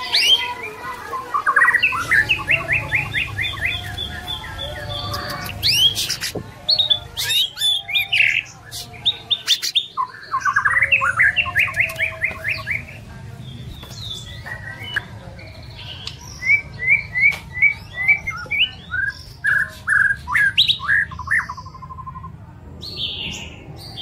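White-rumped shama (murai batu) singing a varied song: fast runs of repeated notes alternating with clear whistled phrases, broken by short pauses.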